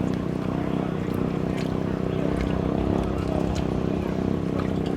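Boat engine running steadily at one unchanging pitch, with a few faint clicks over it.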